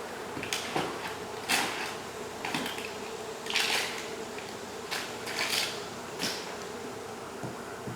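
Honey bees buzzing steadily from an opened wall hive, under a few short scraping and rustling noises from the cut-out work, the longest about three and a half seconds in.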